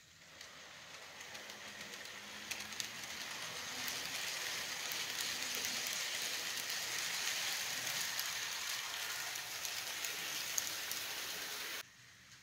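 A model passenger train runs past close by, its wheels rolling on the track with a steady hiss and scattered small clicks. The sound builds over the first few seconds as the train approaches, then cuts off suddenly near the end.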